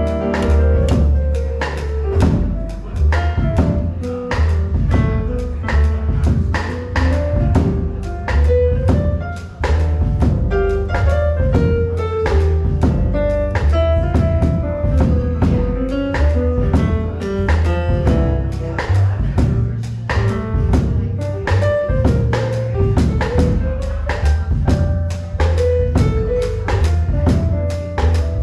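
Live small-group jazz. An upright double bass is plucked and an electric keyboard plays, with a drum kit keeping a steady beat throughout.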